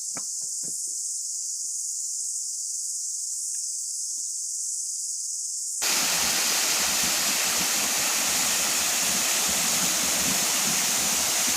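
A steady high-pitched insect chorus, with a few light knocks near the start; about six seconds in it cuts abruptly to the louder, even rush of flowing water.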